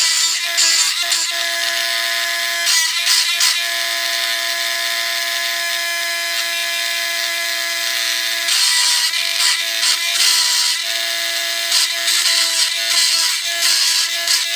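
Cordless rotary engraving tool running with a steady high whine. Its bit grinds into wood in intermittent scratchy bursts as it cuts lines.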